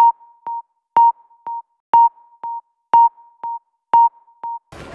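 Edited-in electronic tick-tock sound effect over muted audio: a short beep with a click about once a second, each followed half a second later by a quieter one. It stops shortly before the end.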